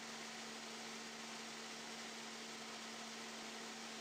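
Steady hiss with a constant low electrical hum, unchanging throughout, with no distinct sound event.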